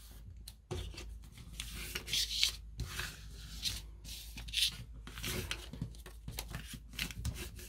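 Paper being folded and creased on a cutting mat: a series of short rubbing, rustling strokes as hands and a card press the fold of a paper airplane's wing flat.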